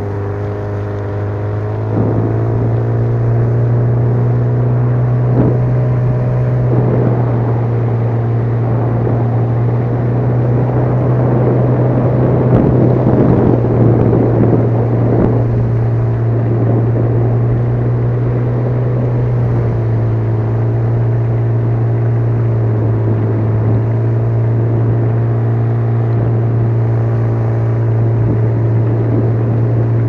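Small outboard motor running steadily, driving an inflatable boat along a river. The engine note rises about two seconds in, drops back slightly about two-thirds of the way through, and a rushing hiss of water or wind swells in the middle.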